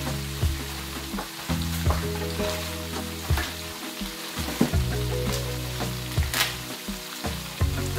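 Diced potatoes frying in hot grease: a steady sizzle with frequent crackles and pops, over low background music.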